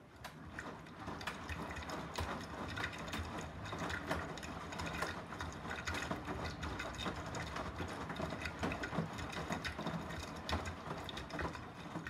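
Beko WTK104121A washing machine's drum turning in the first rinse, starting up from a pause: water sloshing and wet laundry tumbling and slapping inside the drum over a low machine hum.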